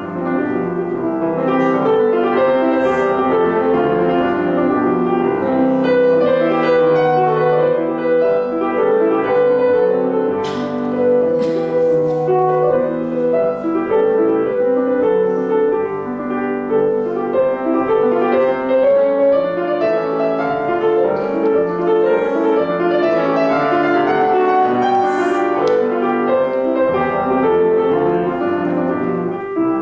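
Classical music played live, with the piano prominent and some notes held for several seconds over it.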